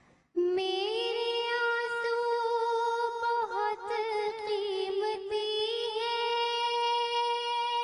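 A high solo voice sings one long held note of an Urdu devotional naat. It begins a moment in, wavers a little in the middle, then settles steady again.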